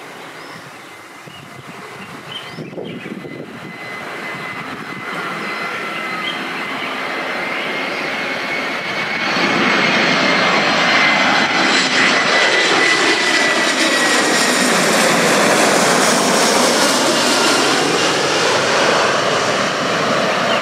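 Airbus A321-211 airliner's CFM56 turbofan engines on landing approach, growing steadily louder as it comes in low and passes overhead. A high engine whine falls slightly in pitch and fades past the middle, and the sound stays loud near the end.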